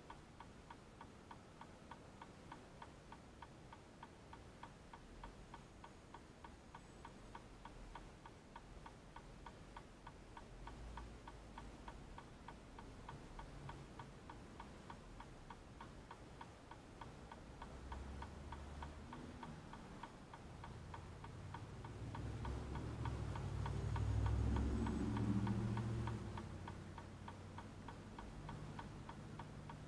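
A vehicle's turn-signal flasher ticking steadily, about two clicks a second. A low rumble of passing vehicles builds about two-thirds of the way through, is loudest near the end, then fades.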